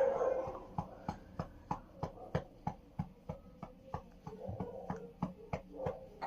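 A hand patting a baby's back in a steady rhythm, about three light pats a second, to bring up a burp.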